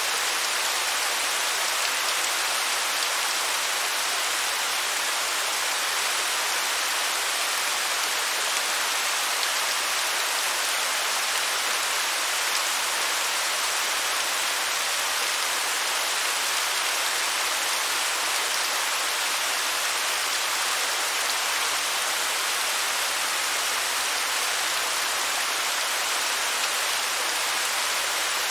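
Waterfall: a steady, even rush of falling water, hissy rather than deep.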